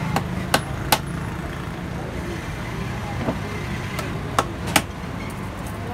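Hammer knocking small nails through a rubber strip into the rim of a cut tyre: three quick strikes at the start and three more about four seconds in, over a steady low hum of traffic.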